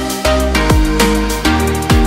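Electronic background music with a steady beat of about two hits a second, each hit sliding down in pitch.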